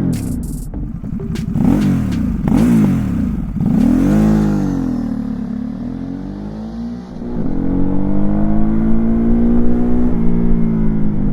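Ducati SuperSport S's 937 cc L-twin on its standard exhaust, blipped in quick revs about once a second, then one longer rev that dies back down. About seven seconds in it picks up again into a louder, steady note that climbs slowly. A few sharp clicks come near the start.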